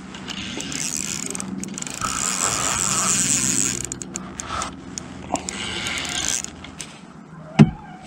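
Gear being handled in an aluminum fishing boat: a steady mechanical whirring lasts for the first few seconds, then softer rustling, then a single sharp knock against the boat near the end.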